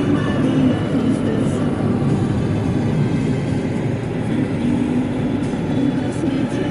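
Steady road noise inside a moving car's cabin: tyres and engine rumbling at speed.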